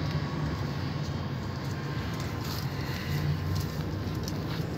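Steady low background rumble, with a few faint clicks as climbing rope and carabiners are handled at the wall.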